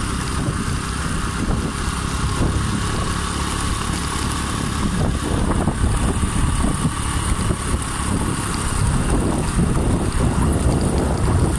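Motorcycle riding along a dirt road: the engine runs under a steady, loud rush of wind over the microphone.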